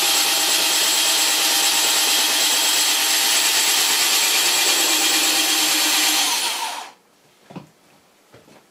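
A power tool's electric motor running steadily at high speed while the saw blade is lowered on its lift. It dies away quickly about six and a half seconds in, followed by a few faint clicks.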